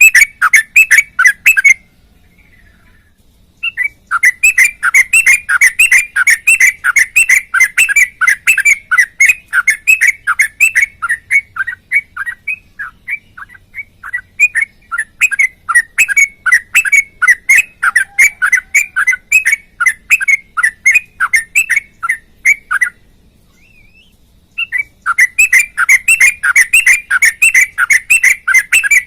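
Caged sooty-headed bulbul (trucuk) singing loudly in rapid runs of repeated chirping notes, about three a second. It breaks off twice for a second or so.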